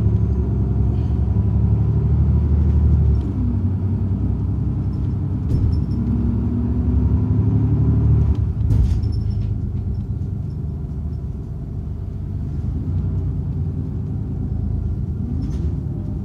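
City bus heard from inside the cabin while driving: a steady low engine and road rumble, the engine note gliding up and down a few times as the bus speeds up and slows. A short sharp click comes about nine seconds in.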